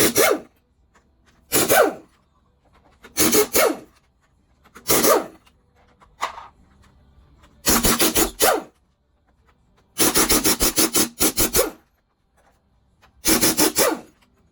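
Half-inch pneumatic impact wrench hammering in about seven short, loud bursts, the longest nearly two seconds, trying to break loose bolts that are seized tight.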